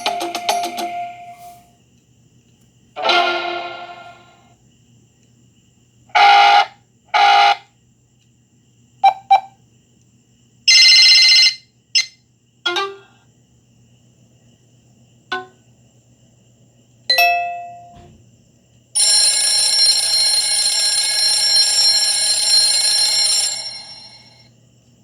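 BlackBerry Bold 9000 smartphone playing a series of its alert tones one after another: about ten short chimes, beeps and blips separated by brief gaps, some ringing out and fading, followed by a longer sustained ringtone near the end.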